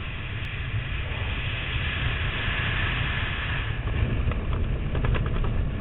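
Steady wind rushing over a helmet-mounted camera's microphone while descending under an open parachute canopy, with a heavy low rumble and a few light ticks near the end.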